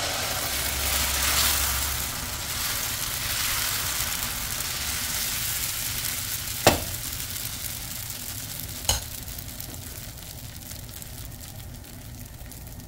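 Dosa batter sizzling on a hot cast-iron dosa tawa as it is poured and spread with a ladle. The hiss is loudest in the first couple of seconds and fades slowly, with two sharp knocks about two seconds apart midway.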